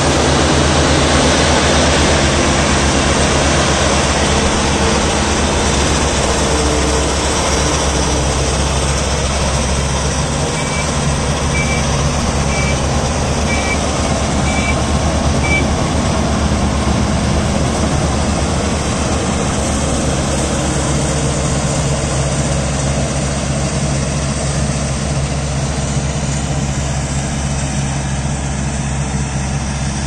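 Ajay rice combine harvester running steadily while cutting paddy: a dense, even mechanical noise over a low engine hum. Midway a faint high beep repeats about once a second for a few seconds.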